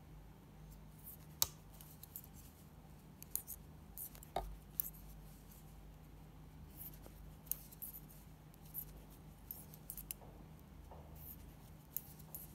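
Knitting needles clicking and tapping against each other as stitches are worked, in irregular light clicks, the sharpest about a second and a half in, over a faint steady hum.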